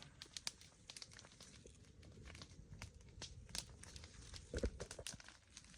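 Faint handling noise: irregular crinkling and clicking, with a dull thump about four and a half seconds in.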